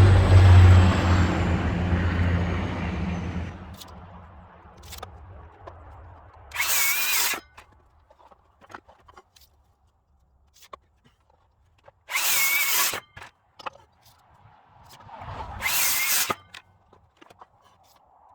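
A reciprocating saw cuts wood and winds down over the first few seconds. A cordless drill then drives screws into wood in three short bursts, with small knocks in between.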